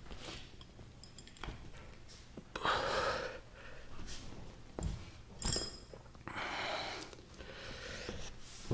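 Double-braid polyester trampoline lacing being drawn by hand through metal grommets: a few drawn-out rubbing pulls, with several short clicks and taps between them.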